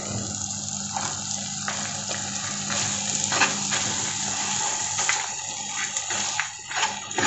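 Cooked rice being stirred into hot oil and fried gongura in a pan: a steady frying hiss, with a few knocks and scrapes of the spatula against the pan.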